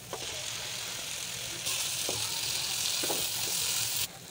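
Minced chicken frying in a non-stick pan, sizzling steadily, with a few light knocks of a wooden spoon against the pan. The sizzle turns sharply louder about one and a half seconds in and cuts off abruptly near the end.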